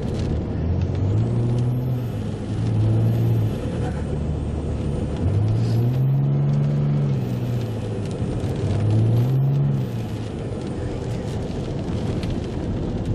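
Car engine speeding up and easing off four times in the first ten seconds, a faint high whine rising and falling with it, over a steady low rumble of road noise.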